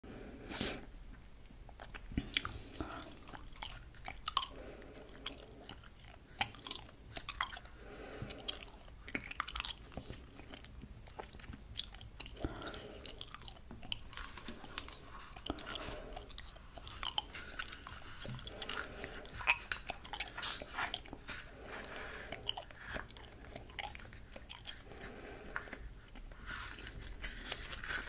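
Close-miked chewing of gum: irregular soft mouth sounds with sharp wet clicks and smacks, about one chew a second.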